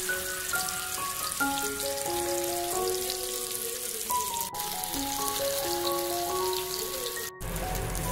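Fish sizzling and crackling as it cooks, under soft keyboard-like background music with a slow melody. About seven seconds in there is a brief dropout, and the sizzle then resumes with more low rumble.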